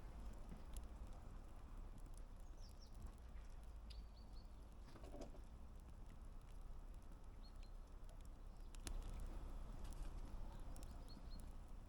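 Wood campfire crackling, with scattered sharp pops over a low steady rumble. Small birds chirp faintly several times.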